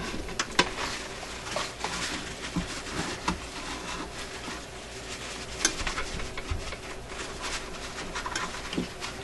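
Handling noise in a vintage record changer mechanism: a paper towel rustling and crumpling, with irregular light clicks and taps from the metal parts.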